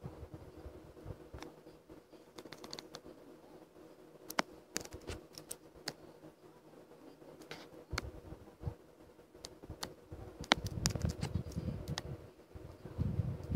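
Scattered light clicks and taps while drawing at a desk, irregular and a second or so apart, over a steady faint hum. About ten seconds in, a low rumbling joins them.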